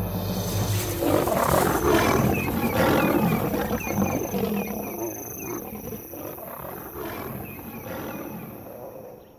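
Lions growling and snarling in a fight, loudest about two to three seconds in and fading away near the end. Faint insect-like chirps repeat behind.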